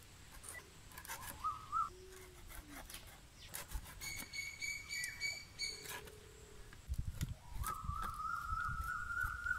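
Birds calling in short pitched calls, the longest a wavering call over the last two seconds, over scattered clicks and scrapes of small fish being cut and cleaned on a fixed upright blade.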